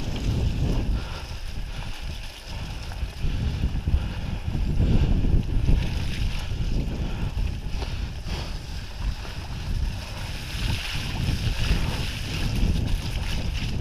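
Wind buffeting the microphone of a mountain bike's action camera while riding, over the rumble of knobby tyres and the rattle of the bike on a rough forest trail, with a brighter hiss in the last few seconds.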